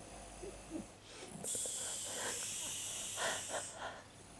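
A woman snoring with an odd, wheezy breath: a few short low snorts, then a long hissing breath lasting about two seconds, starting about a second and a half in.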